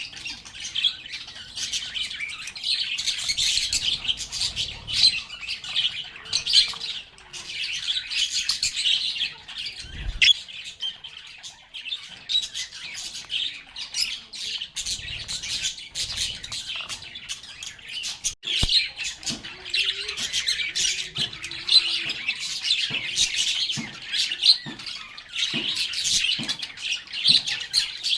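A flock of lovebirds chattering: dense, continuous high-pitched chirps and squawks overlapping without pause, with a low thump and a sharp click here and there.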